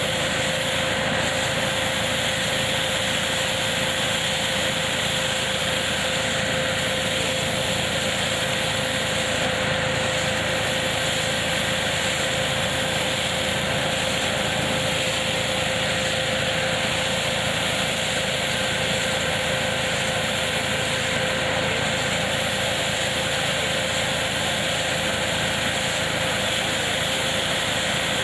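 Tractor-powered KF-501 hazelnut collecting machine running steadily at a constant speed: an even mechanical noise with a steady high whine, without change or pause.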